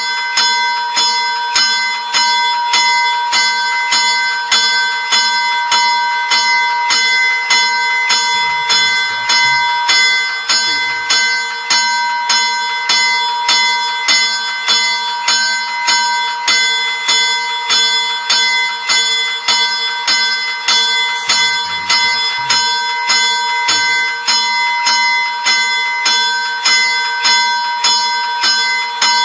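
Railroad crossing bell ringing continuously, struck in a rapid, even rhythm with the same ringing pitch on every stroke.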